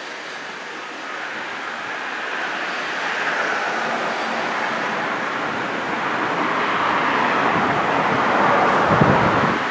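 Running noise of a moving passenger train: a steady rushing that grows louder and peaks about nine seconds in.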